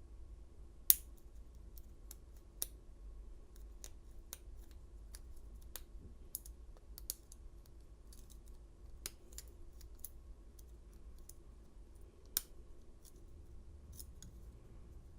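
Small, irregular metal clicks and scratches of a lock pick and tension wrench working the pin stack of an American 700 padlock during single pin picking, as pins set, with two sharper clicks about a second in and near the end.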